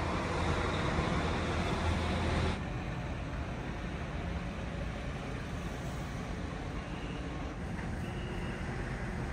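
Diesel trucks running as they come off a ferry's vehicle ramp, a steady engine and traffic rumble whose deep hum drops off abruptly about two and a half seconds in. Faint short high beeps repeat near the end.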